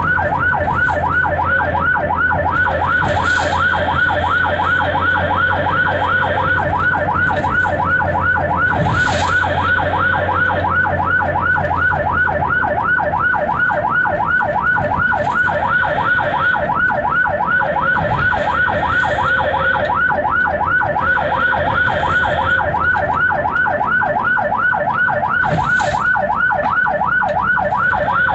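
Ambulance siren on a fast yelp, heard from inside the ambulance's cab: quick rising sweeps repeating several times a second without a break. A low engine hum lies underneath for the first half and then fades.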